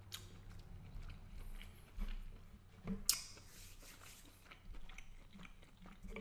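Close-up chewing and mouth sounds of someone eating shrimp and pasta, with soft wet smacks and a sharper smack about three seconds in.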